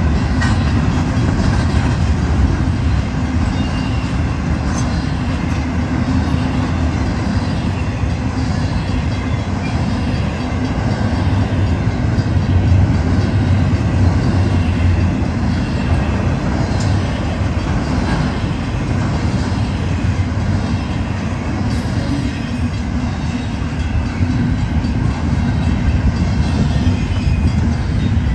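Double-stack intermodal container train rolling past, a steady loud rumble of its well cars' wheels on the rail.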